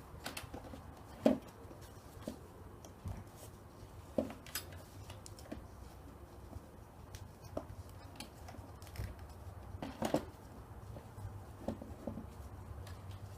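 Irregular clicks and knocks of plastic being handled as a new cabin air filter is worked into its plastic filter box, with the sharpest knock about a second in and a few more around ten seconds. A steady low hum runs underneath.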